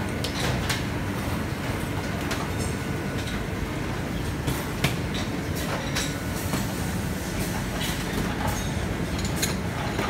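Lipstick filling machine and conveyor line running: a steady mechanical din with scattered clicks and clacks of metal parts and molds.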